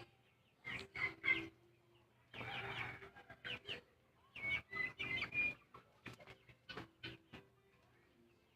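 Domestic chickens clucking and calling in short bursts that trail off near the end.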